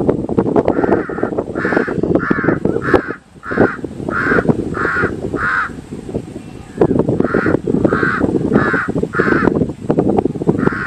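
Crow cawing: a run of about eight evenly spaced caws, roughly three every two seconds, then a pause, then about four more and one last caw near the end. A loud steady low rumble runs underneath.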